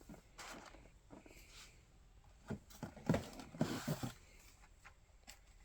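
Faint rustling and a few light clicks from carded Hot Wheels die-cast cars being handled, with cardboard backing and plastic blisters knocking together, mostly in a short cluster partway through.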